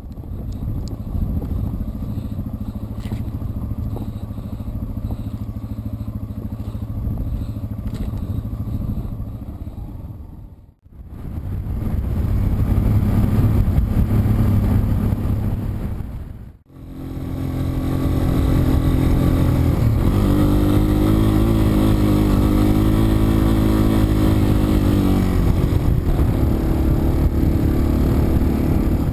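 Yamaha TW200's single-cylinder engine running while riding a dirt trail, with a steady pull and some pitch wavering. It drops out briefly twice, about 11 and 17 seconds in, and is louder in the last part.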